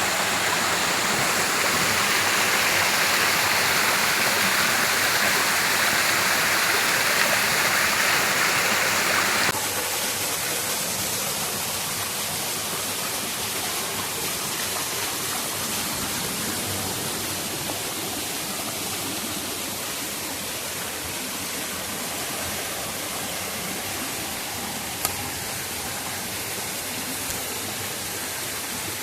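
Stream water rushing steadily over rocks. About nine seconds in, the sound suddenly drops to a quieter, thinner rush, and a single short click comes near the end.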